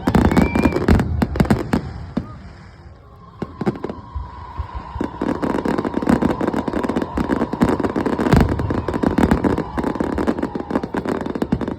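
Fireworks display: repeated sharp bangs, easing off for a moment a few seconds in, then a dense run of rapid crackling with a steady high tone running through it.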